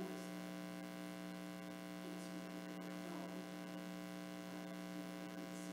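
Steady electrical mains hum: a low, unchanging tone with many evenly spaced higher tones stacked above it.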